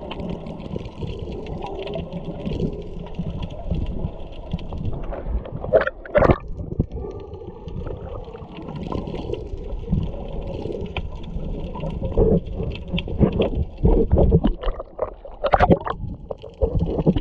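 Underwater water noise picked up through a GoPro's waterproof housing: a steady, muffled low rush of moving water. Scattered sharp pops and knocks run through it, two loud ones about six seconds in and a cluster more in the second half.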